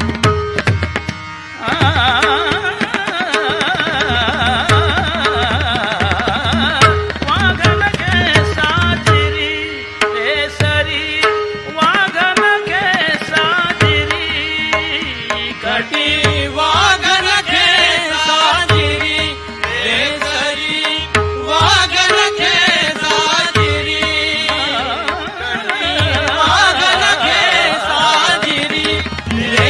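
Marathi devotional gavlan music: tabla playing a steady rhythm under a fast, ornamented melody line, with one note held as a drone.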